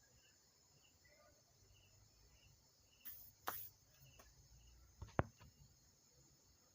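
Quiet handling noises as a circuit board is set into an amplifier chassis: a short scrape about three seconds in and a sharp click about five seconds in. Faint, regular high chirps run underneath.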